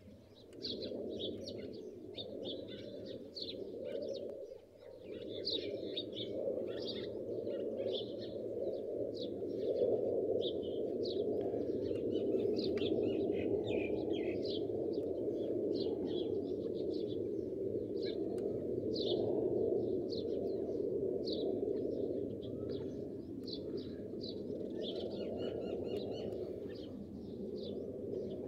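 Many short, high bird chirps in quick irregular succession, over a steady low rushing noise.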